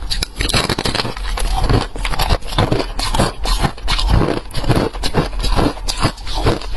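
Freezer frost crunching and scraping in fast, irregular crackles that keep up without a pause.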